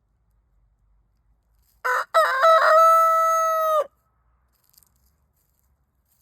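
A rooster crowing once, about two seconds in: a few short broken notes, then a long held final note that cuts off, lasting about two seconds in all.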